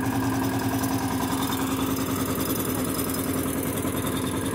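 A 13 HP power tiller's single-cylinder diesel engine running steadily while it drives a Sonalika 30x18 multicrop thresher, a fast, even low chugging under a constant hum.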